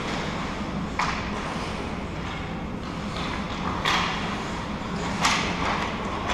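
Ice hockey play in a rink: a steady hall noise of skating with three sharp knocks of sticks and puck, about one, four and five seconds in. The knock near four seconds trails into a short hiss.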